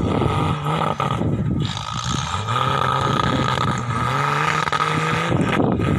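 Off-road 4x4's engine revving, its pitch rising in steps and holding between them. A steady high whine sounds alongside.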